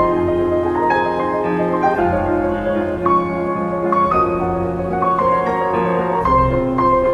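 Film score: a piano plays a slow melody of repeated notes over held lower notes.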